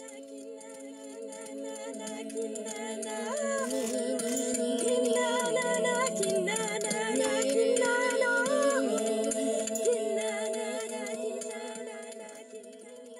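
Background music: a singing voice carrying a slow, wavering melody over a held accompaniment. It grows louder toward the middle and fades near the end.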